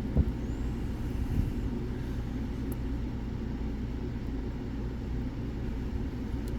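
Steady low rumble, with one sharp click just after the start and a few faint ticks later on.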